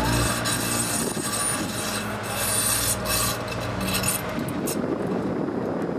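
HTM GTL articulated tram passing close by through a curve, its wheels grinding and rasping on the rails over a steady low hum that fades about four seconds in.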